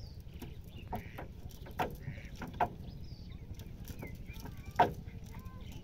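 Knocks and rattles of a cast net with chain weights being handled against the wooden deck of a boat as fish are picked out, the loudest knock near the end. Birds call in the background.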